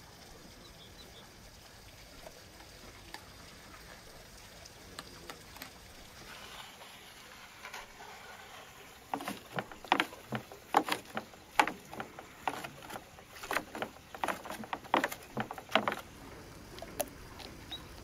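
Cooked lamb being pulled apart and handled in a tray: a quick, irregular run of wet clicks and crackles that starts about halfway through, with quiet outdoor background before it. A few fainter clicks near the end come from a dog chewing a scrap of meat.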